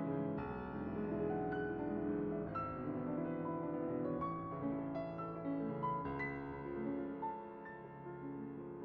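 Piano music: a melody of separate notes over sustained lower notes.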